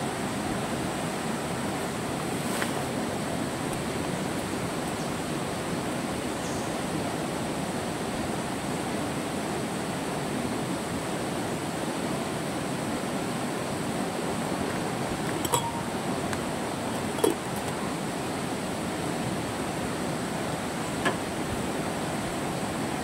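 Steady rush of a stream running past, with a few brief sharp clicks.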